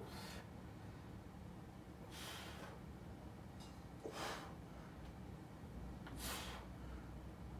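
A man's forceful breaths with the exertion of log press repetitions: four short gusts of breath, about two seconds apart, over a low steady hum.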